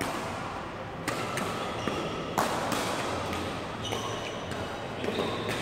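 Badminton rally on a hall court: a few sharp racket hits on the shuttlecock in the first half, then short high squeaks of shoes on the court floor later on.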